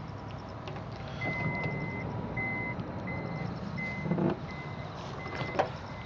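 Warning beeper of a Daihatsu Atrai van's sliding side door: one long high beep, then a string of short, evenly spaced beeps. The door shuts with a thud about four seconds in, and a click follows near the end.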